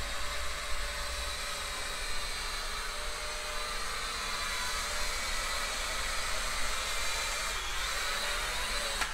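E99 K3 Pro mini quadcopter drone in flight, its motors and propellers making a steady high whirring buzz, with a low rumble underneath.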